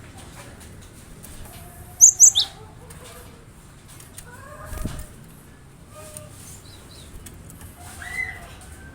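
Cinereous tit (gelatik batu) calling: three loud, sharp high notes about two seconds in, with fainter lower chirps scattered through the rest.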